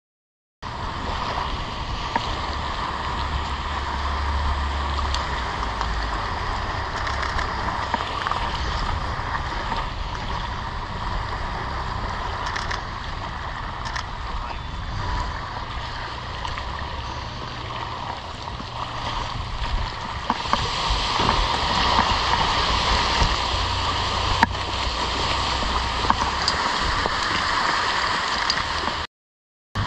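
Outboard motor of a small open boat running at low speed in the shallows, with water sloshing and wind on the microphone; it all grows louder about two-thirds of the way in.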